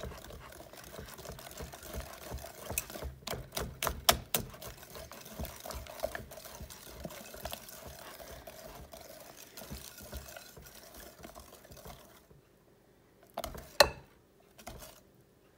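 Wire whisk beating thick, syrupy pecan pie filling in a glass mixing bowl: a steady run of wet stirring strokes with the whisk clicking against the glass. It dies down near the end, with one sharp click.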